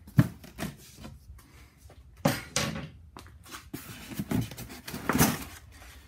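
Unpacking a cardboard shipping box: a sharp knock just after the start, then thuds, scraping and rustling as a thin wooden board and then a foam sheet are lifted out of the box.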